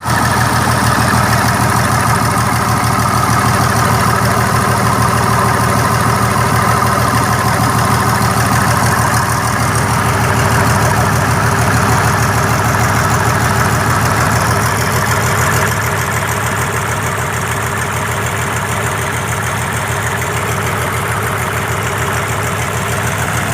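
Mitsubishi 6D14 inline six-cylinder diesel engine of a 75 kVA generator set running steadily, freshly overhauled. It gets a little quieter about two-thirds of the way through.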